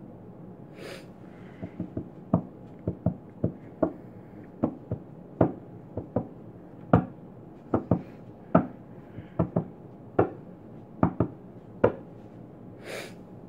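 About twenty light, sharp taps on a hard surface at an irregular pace, with two brief soft rushes of noise, one near the start and one near the end.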